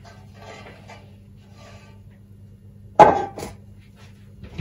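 A sharp metallic knock about three seconds in, with a lighter one just after it and another near the end, over a steady low electrical hum.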